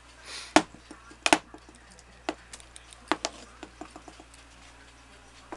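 Irregular sharp clicks and knocks from a metal pocket watch and its chain being handled and hung against a wooden wall. The loudest knocks come in the first second and a half, then lighter ticks.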